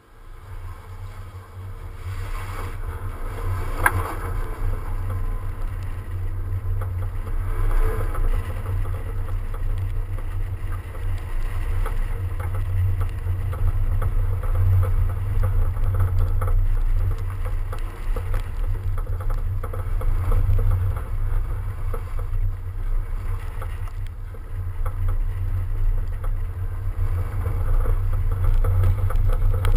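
Heavy low rumble of wind buffeting and road noise on a camera mounted outside a car driving through a snowy cone slalom. It swells as the car pulls away about a second in, and there is a single knock about four seconds in.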